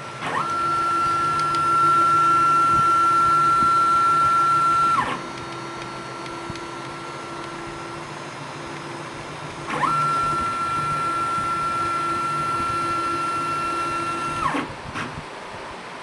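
Stepper motors of a small CNC machine driving its tool head: a high whine that ramps up quickly, holds one steady pitch for about four and a half seconds, then ramps down, followed by a second run just like it after a pause of about five seconds. A low machine hum carries on between the runs.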